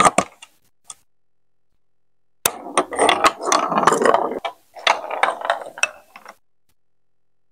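A plastic ball rolls and rattles along plastic Lego Duplo marble run chutes for about four seconds, a steady rumble dotted with clicks and knocks. Right at the start, a plastic track piece clicks into place.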